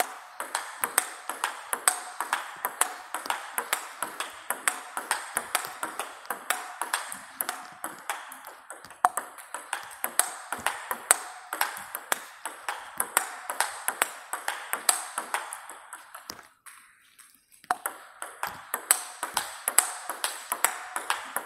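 Table tennis forehand-drive rally: the ball clicking off the bats and the table in a quick, steady rhythm. The hits carry the crackle typical of a tacky Chinese rubber, here a Young Shine Blue. Play stops for about a second near the end, then picks up again.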